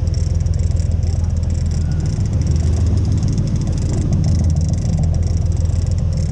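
A boat engine running at a steady low drone, with a hiss of wind and water over it.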